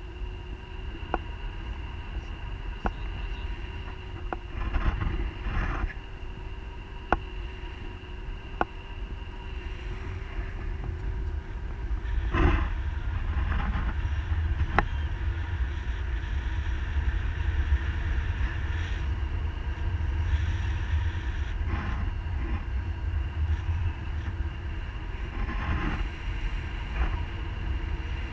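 Airflow buffeting an action camera's microphone in paragliding flight: a steady low rumble that grows louder from about twelve seconds in, with a few sharp clicks and rustles and a faint steady high tone.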